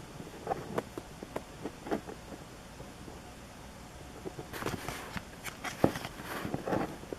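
Trading cards being handled and flipped through: scattered light taps and clicks, with short rustles about halfway through and again near the end.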